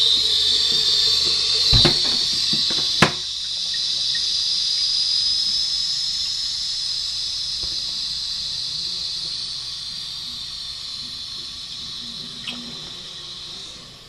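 American Standard Cadet II toilet tank refilling through its ballcock fill valve: a steady high hiss of water that slowly fades. Two sharp knocks a couple of seconds in.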